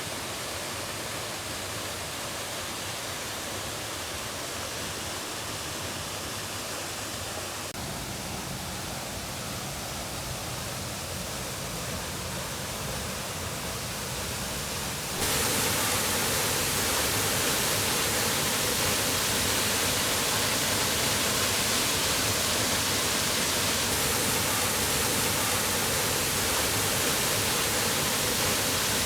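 Waterfall rushing, a steady roar of falling water; it becomes clearly louder and fuller about halfway through.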